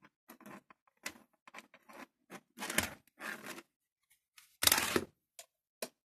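Handling noise of a USB hub and its coiled cable being unwound and moved about: a run of short rustles and small clicks, with one louder rustle about four and a half seconds in.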